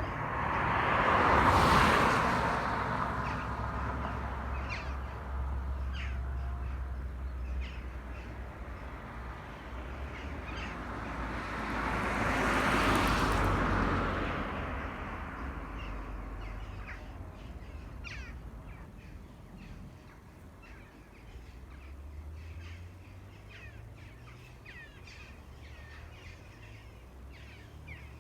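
Two vehicles passing on the road, one about a second and a half in and another about eleven seconds later, each rising and fading over a low road rumble. Short bird calls follow in the quieter second half.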